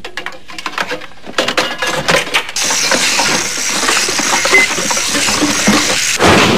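Metallic clinking and rattling as garbage is fed into a tin-box robot machine, then a steady hiss, and a heavy low clunk near the end.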